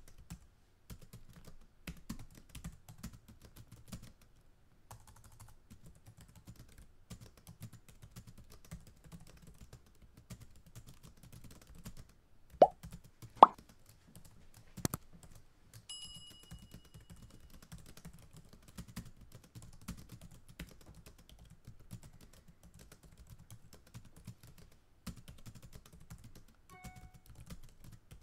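Computer keyboard typing in quick irregular runs of key clicks. A little past halfway come two loud pop sound effects, then a ringing bell-like ding, and a short chime sounds near the end.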